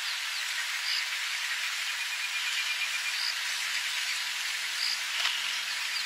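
Insect chorus in the bush: a steady high hiss with a pulsing trill and short high chirps repeating about once a second.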